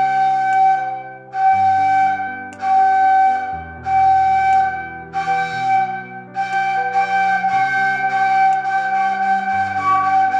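Ney (Turkish end-blown reed flute) playing a long-tone practice exercise: one steady note blown in about five separate breaths, the last held for several seconds. A lower accompaniment moves through changing pitches underneath.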